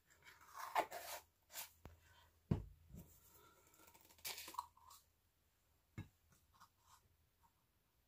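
Faint handling of small chalk-paint jars: screw lids twisted off and set down, with scrapes and clicks, a dull thump about two and a half seconds in, and another knock about six seconds in.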